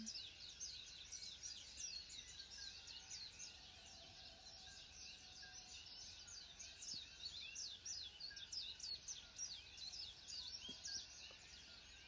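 Faint chorus of many small birds chirping, a dense, steady stream of quick, high, downward-sliding notes.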